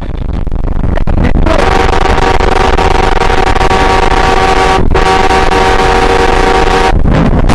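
Vehicle horn held down over loud driving rumble: it starts about a second and a half in, blares as one steady multi-note chord with a brief break around five seconds, and stops near the end as an oncoming car comes head-on.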